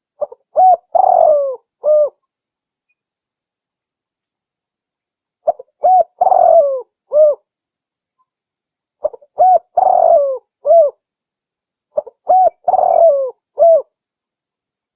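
Spotted dove (cikukur) cooing, four phrases of a few short coos ending in a longer falling note, about every three and a half seconds with silence between. It is a lure call for attracting spotted doves.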